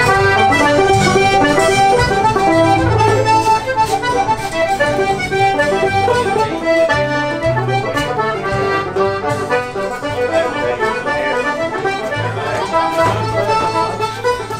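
Traditional Irish tune played on an accordion: a quick run of held notes over a changing low accompaniment.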